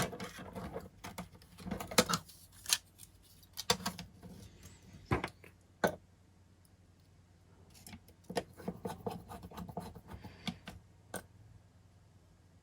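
Laptop cooling fan being fitted back into place and its small screws driven in by hand with a small screwdriver: scattered sharp clicks and taps of plastic and metal with short scratchy rustles, a busier run of scraping clicks about two-thirds of the way through.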